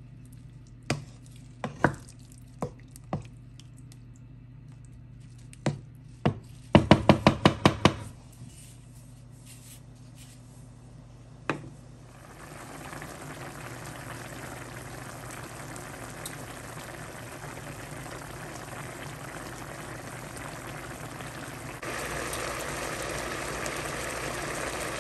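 A wooden spoon stirring beef liver in sauce in a nonstick pan and knocking against the pan: scattered knocks, then a quick run of about eight taps around seven seconds in. From about halfway, the liver in its spiced water simmers with a steady bubbling that grows louder near the end as the water cooks down.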